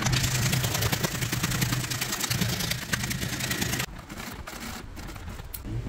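A leatherworking machine working red leather seat-cover material runs with a fast, even clatter for about four seconds, then stops. A few light clicks follow.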